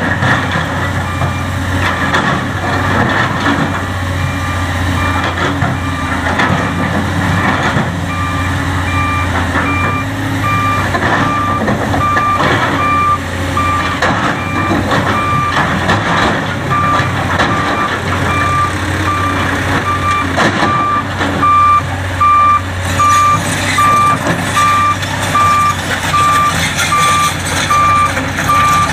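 Heavy machine's backup/travel alarm beeping in an even repeating rhythm over a steadily running diesel engine, typical of earthmoving equipment moving at a quarry. The beeps grow louder near the end.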